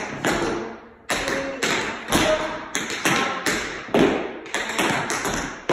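Metal-plated tap shoes striking a wooden dance floor in a run of quick, uneven taps, about a dozen sharp strikes in a syncopated tap-dance rhythm.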